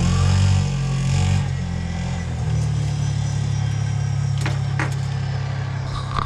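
A motor vehicle's engine idling with a low, steady drone that shifts in pitch during the first couple of seconds and then settles. A few light clicks, and a sharp knock near the end.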